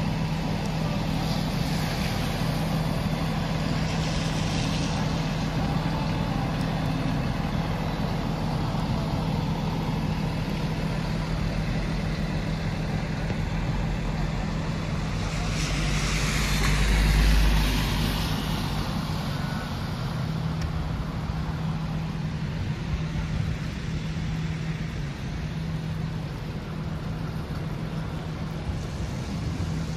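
Street traffic on wet pavement: a steady low hum under the traffic, and a vehicle passing with a hiss of tyres on the wet road, loudest a little past halfway.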